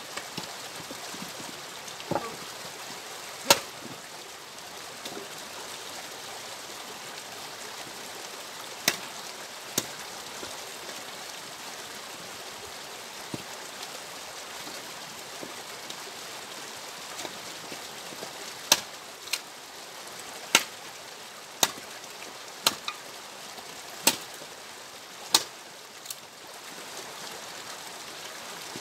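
Axe striking and splitting firewood logs: about a dozen sharp cracks at irregular intervals, coming more often in the second half.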